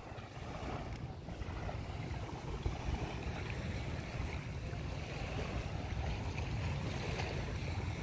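Wind buffeting the microphone, a steady low rumble, over a faint wash of calm sea water at the shore.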